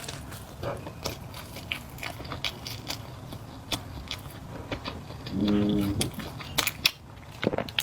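Close-miked eating of spicy flat noodles: wet mouth clicks and smacks of chewing, scattered irregularly. About five and a half seconds in, a brief steady hummed 'mm' from the eater is the loudest sound.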